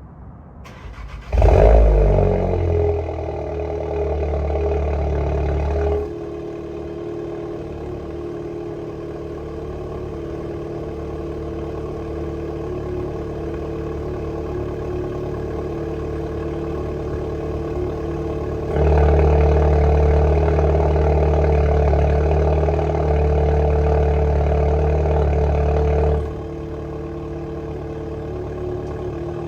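Volkswagen Golf R Mk7.5's turbocharged 2.0-litre four-cylinder cold-starting through an Akrapovič exhaust with the resonator deleted. It flares loudly on start-up and settles into a fast cold idle. The exhaust valves shut about six seconds in and the note drops much quieter, then they open again for about seven seconds of loud, deep idle before closing once more.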